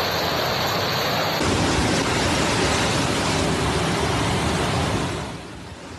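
Floodwater rushing through a street: a steady rushing noise that grows fuller and lower about a second and a half in, then fades out near the end.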